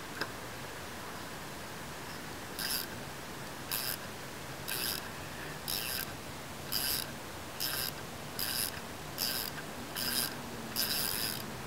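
Ratchet wrench worked back and forth on a car's lug nut, its pawl clicking in about ten short bursts just under a second apart, beginning a few seconds in.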